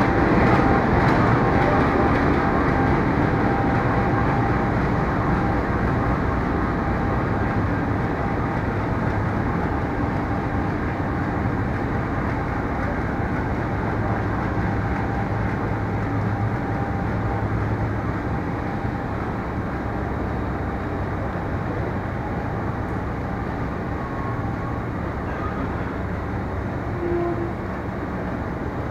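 Diesel-electric locomotive hauling a train of passenger carriages past the platform and away. Its engine and rolling rumble are loudest at first and fade slowly as the train draws off into the distance.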